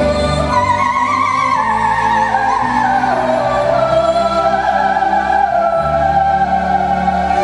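Soprano singing a wordless, vibrato-laden vocal line over orchestral accompaniment. The melody steps downward over the first few seconds, then settles into a long held note.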